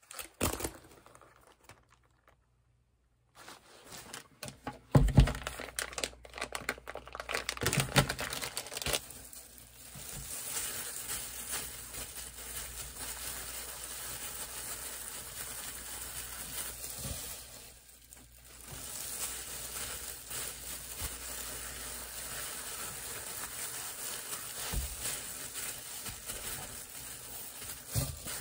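Plastic crinkling and rustling with sharp handling knocks for several seconds, then a steady hiss with soft rustling as hands in disposable plastic gloves press rice onto a sheet of seaweed.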